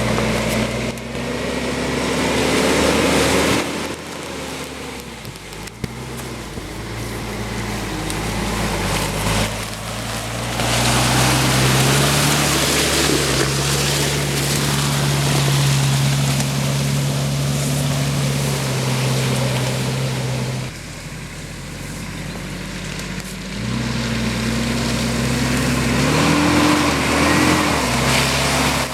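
Off-road SUV engine running under load and revving up and down as the vehicle churns through deep mud and water, with splashing and tyre noise over the engine. The engine note dips about 4 s and 21 s in and rises again, wavering near the end.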